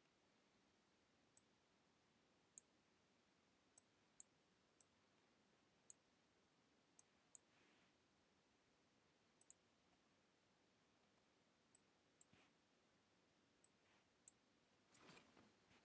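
Faint, sharp computer mouse clicks, about fifteen at irregular intervals, over near silence, with a soft rustle near the end.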